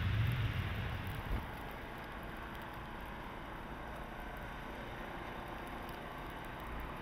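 A low engine rumble that drops away about a second in, ending with a short thump, then a steady hiss.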